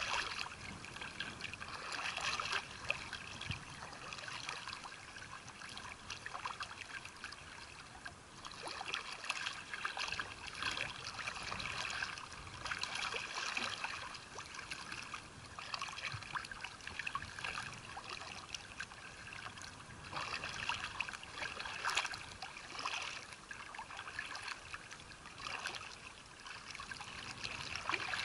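Water splashing and trickling, swelling and easing every few seconds.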